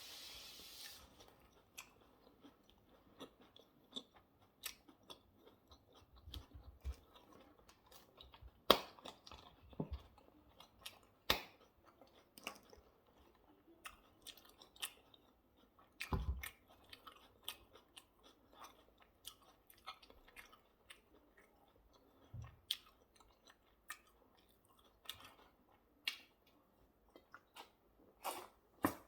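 Close-miked chewing of hamburger and salad: irregular wet mouth clicks and small crunches, with a few sharper clicks and a dull thump partway through.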